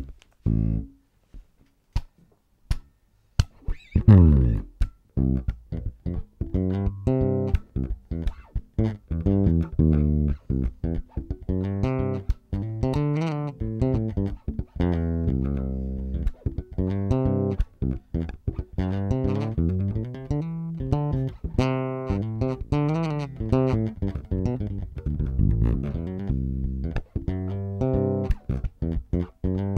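Fender Jazz Bass electric bass played fingerstyle, improvising in C. It starts with a few sparse plucked notes, slides down in pitch about four seconds in, and then keeps up a continuous run of notes.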